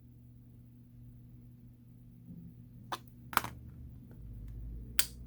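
Small sharp clicks and taps of handling a smartphone's internal parts with a tool during disassembly: three distinct clicks about three seconds in, just after, and near the end, the middle one loudest, over a low steady hum.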